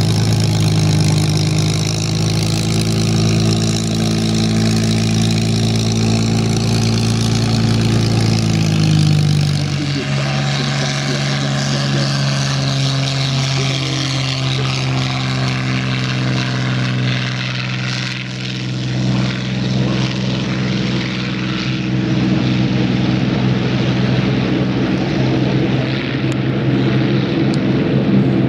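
Supermarine Spitfire Mk XVI's Packard Merlin 266 V12 engine, first running as the fighter taxis, then at take-off power through the take-off roll and climb-out. The engine note changes about ten seconds in.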